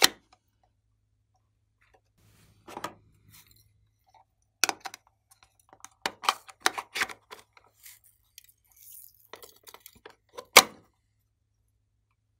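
Hard plastic toy case being handled: scattered clicks and light rattles of its parts, with one sharp snap near the end.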